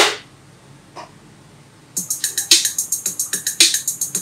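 Backing music of a children's English chant recording: after a short pause with a faint click, a fast, steady percussion beat starts about two seconds in, with a strong hit roughly every half second and lighter hits in between.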